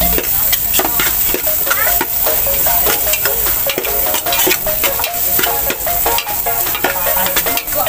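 Metal spatula repeatedly scraping around the bottom of an aluminium pot as sliced garlic, onion and ginger sauté and sizzle in margarine.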